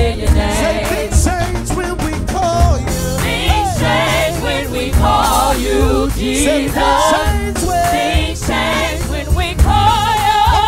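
Live gospel praise team, several singers on microphones, singing over instrumental backing with a steady beat.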